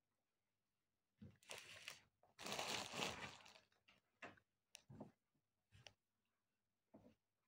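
Quiet eating sounds: a second-long crackling rustle of chewing and handling about two and a half seconds in, then several short clicks of a fork against a plate.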